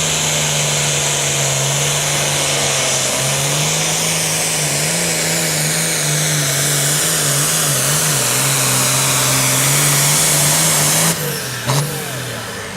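Super Farm class pulling tractor's engine running flat out under load as it drags the weight-transfer sled, its note held steady, then wavering in pitch for a few seconds. About eleven seconds in the throttle is cut and the engine note drops away.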